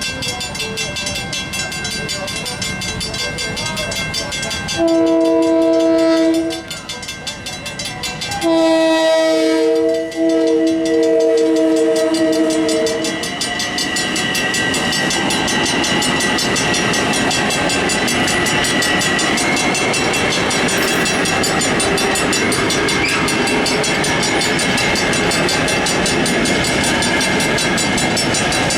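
Western Cullen Hayes mechanical crossing bells ringing rapidly, their strike rate sped up. An LIRR Bombardier M7 electric train's horn sounds a blast of about two seconds roughly five seconds in, then a longer blast of about four seconds a moment later. The train then passes, its wheels and motors making a steady rush that runs on under the bells.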